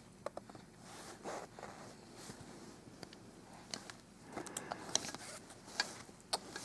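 Scattered small clicks and short scratchy scrapes of a baby play gym's hanging toys being grabbed and handled, coming more often in the second half.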